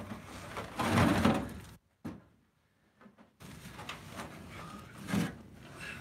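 Ash firewood rounds being dragged across a pickup truck's bed and set down on a woodpile. There is a loud wooden scrape and thud about a second in and another knock about five seconds in. The sound cuts out completely for about a second and a half after the first.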